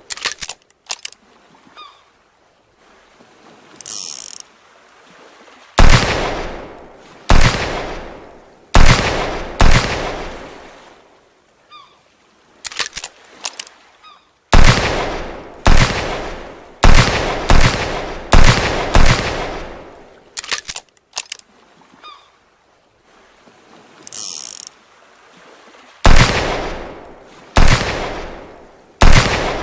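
Revolver gunshot sound effect: single shots about a second apart, each with a long fading echo, fired in groups of three to six. Between the groups come short runs of small mechanical clicks.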